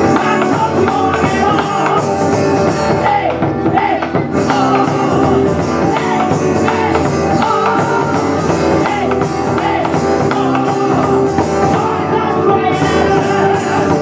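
Live band music: singing voices over a strummed acoustic guitar and percussion, in an upbeat folk-rock style.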